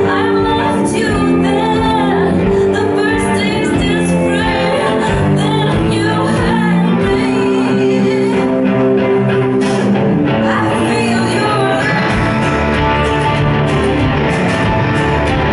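Live band music: a woman singing over electric guitar and bass guitar, giving way to an instrumental guitar passage about eleven seconds in.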